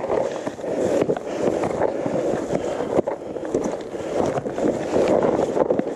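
Gravel bike rolling fast over loose stones and dry leaves: steady tyre rumble with frequent short knocks and rattles as the wheels hit rocks, and wind buffeting the microphone.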